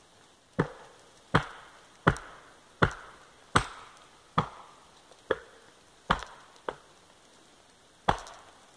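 Heavy blows of a hand tool on wood, evenly spaced about one every three-quarters of a second: nine sharp strikes, each ringing briefly, with a short pause before the last.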